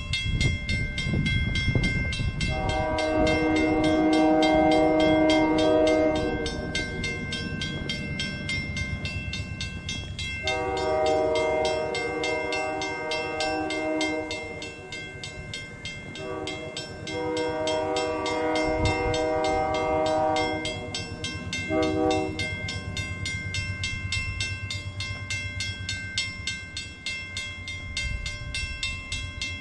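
Canadian Pacific locomotive horn sounding its crossing signal, two long blasts, a short one and a long one, with a brief extra toot near the end. This is the warning for the grade crossing it is about to reach. The crossing's warning bell dings rapidly and steadily throughout, over a low rumble from the approaching train.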